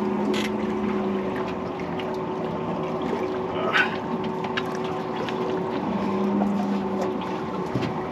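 Boat motor running steadily with an even hum. A brief sharp knock a little under four seconds in.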